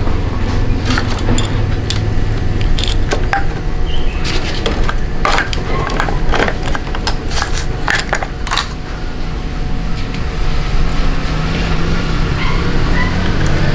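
Irregular metallic clinks and taps of hand tools and parts being handled during motorcycle chain-and-sprocket work, thickest in the middle and thinning out after about nine seconds, over a steady low hum.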